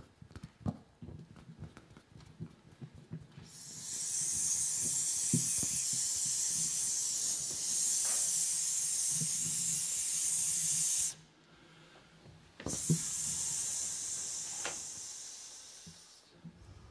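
A long, steady, airy hiss, amplified through a microphone, starting a few seconds in. It breaks off for about a second and a half, as if for a breath, then comes back and fades away near the end. Small clicks and knocks come before it.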